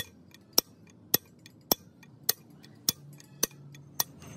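Hammer blows on a drift held against a tapered roller bearing, driving it into a truck axle hub: eight sharp, evenly spaced strikes, about two a second.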